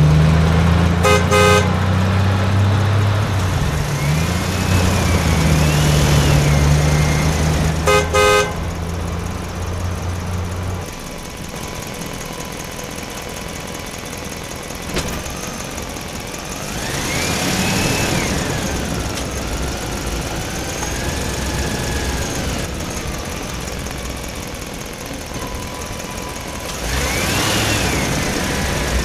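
Car engine running steadily, with two short horn honks, one about a second in and one about eight seconds in. The engine hum stops about eleven seconds in, and after that rising-and-falling whines come and go three times.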